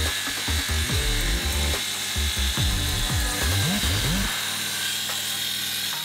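Electronic background music with a deep pulsing bass and swooping pitch glides, laid over the steady whine of a circular saw cutting through oak. The bass drops out about four seconds in, and the saw noise carries on until a sudden cut.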